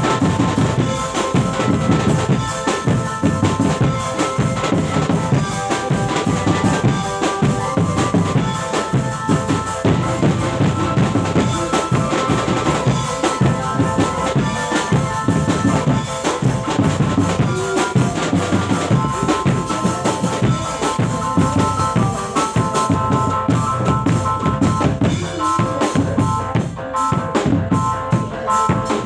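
Drum-led music: fast, dense drumming with a held, shifting melody line above it.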